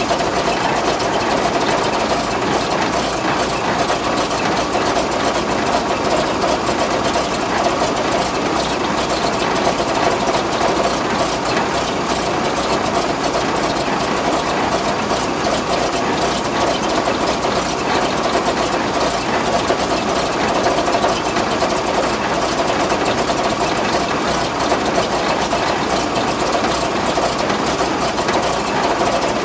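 ZIL-157K six-cylinder petrol engine of a 1968 ZIL-157 KE army truck idling steadily, heard up close at the engine bay.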